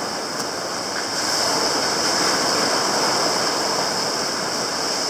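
Shallow surf washing in over sand at the water's edge: a steady rush of breaking foam that swells a little about a second in.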